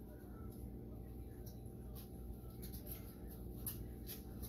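Seasoned salt shaken from a shaker bottle over a pan of flour: a scatter of short, faint rattles and ticks as the granules fall.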